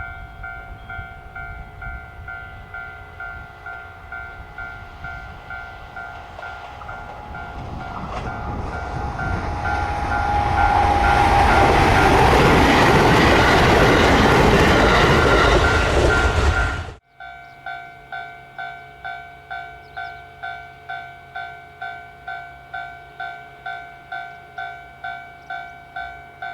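Railway level-crossing warning bell ringing in steady pulses about twice a second as a train approaches and passes, the train growing loud for several seconds. The train sound cuts off suddenly about two-thirds of the way in, and the crossing bell goes on ringing alone.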